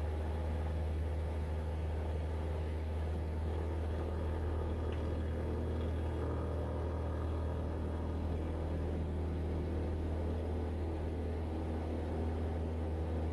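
Cessna 172's piston engine and propeller at takeoff power during the takeoff roll, a steady low drone heard from inside the cockpit.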